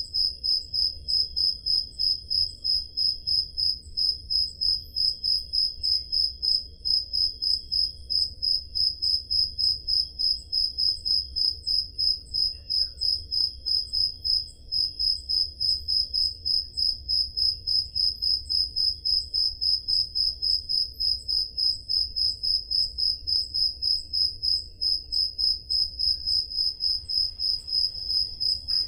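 Crickets chirping, one high chirp repeated steadily about three times a second.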